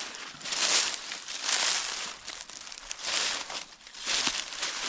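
Footsteps crunching through deep dry fallen leaves at a steady walking pace, about one step every second.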